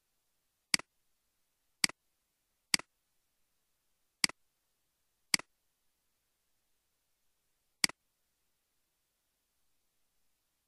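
Six sharp computer mouse clicks at irregular intervals.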